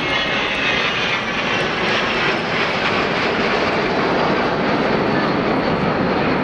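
Engines of a seven-ship formation of CASA C-101EB Aviojet trainers flying past, a loud, steady rush of jet noise.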